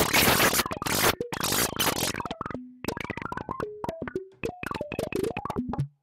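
Meng Qi Wing Pinger synthesizer, which sounds its notes by pinging resonant filters instead of using oscillators. A dense noisy, chaotic texture cuts off about two seconds in. Then comes a quick run of short pitched pings that hop up and down between notes.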